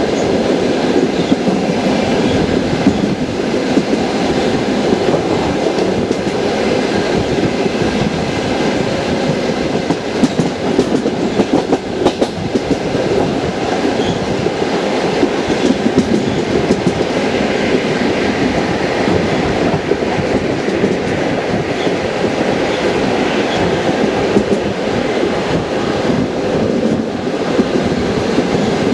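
Passenger train wheels clattering over the rail joints as the train runs along the line: a continuous rumble with repeated clicks of the wheel sets.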